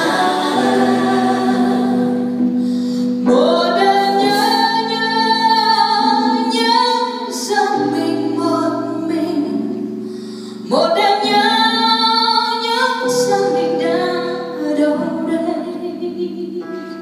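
Small mixed vocal group singing a cappella in close harmony: long held chords over a low bass voice, with new phrases swelling in about three seconds in and again about eleven seconds in.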